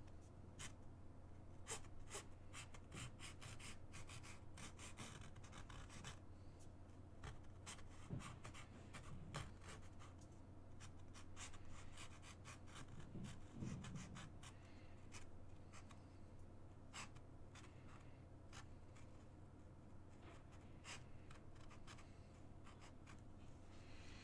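Felt-tip marker scratching across a stretched canvas in many short strokes and taps, faint, over a low steady hum.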